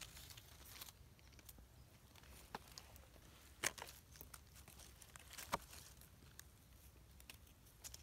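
Faint crackle and scrape of a small knife working through dry soil and leaf litter as mushrooms are cut free, with a few sharp clicks or snaps, two of them louder, near the middle.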